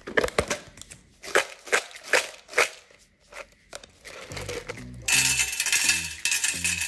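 Plastic deli container lid clicking and snapping as it is pried open, then dried duros (hard wheat pinwheel pellets) pouring and clattering into a nonstick air fryer basket in a loud, dense rush about five seconds in. Background music with a low beat comes in about four seconds in.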